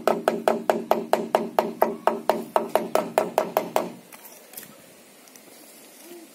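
Hammer tapping quickly and evenly at the base of a wooden post, about five strikes a second, stopping about four seconds in.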